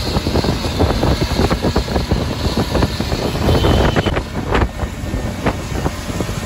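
Ride noise inside a moving auto-rickshaw on a wet road: the small engine's low rumble, the cab rattling with many small knocks, and wind buffeting the microphone.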